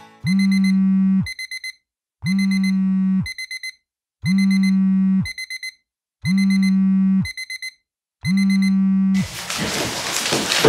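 An alarm ringing to wake someone, in five cycles about two seconds apart: each cycle is a one-second low buzz followed by a quick run of high beeps. Near the end it gives way to a loud rush of noise.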